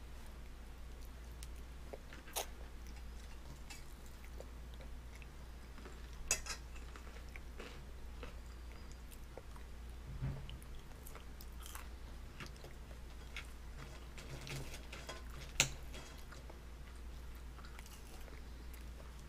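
A baby chewing and smacking on chips and peas, with scattered sharp clicks and taps of mouth and fingers on food and the plastic high-chair tray. A steady low hum runs underneath.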